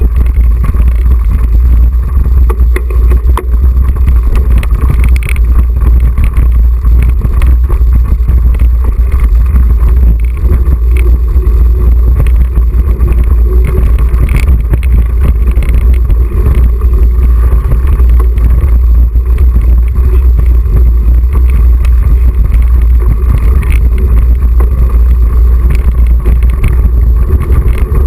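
Mountain bike ridden over grass and a bumpy dirt track, heard through a GoPro's microphone. A heavy, loud, steady rumble of wind and motion on the microphone runs throughout, with constant clicks and clatter from the bike jolting over rough ground.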